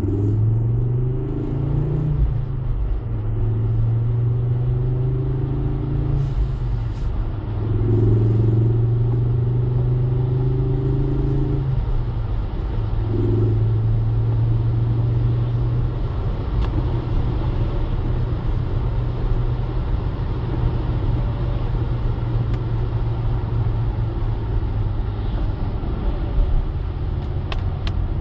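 Ford Focus ST engine and road noise inside the cabin while driving on a wet road. The engine note climbs and drops back several times in the first twelve seconds, then holds steadier under a continuous tyre and road rumble.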